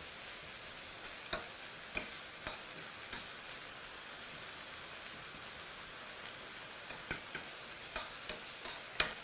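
Garlic and mushrooms sizzling steadily in oil in a stainless-steel pan as they are stirred. A utensil taps and clicks against the pan now and then, about seven times.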